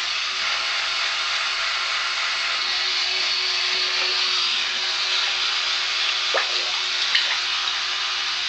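Steady hiss of running water with a faint, even electric-toothbrush hum underneath. A few small ticks come near the end.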